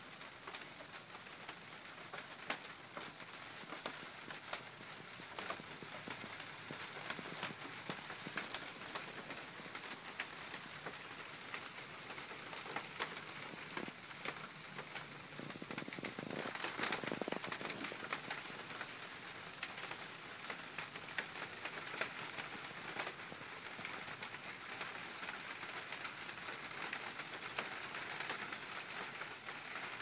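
Steady rain pattering on a translucent plastic roof: an even hiss dotted with single drop ticks, louder for a couple of seconds a little past the middle.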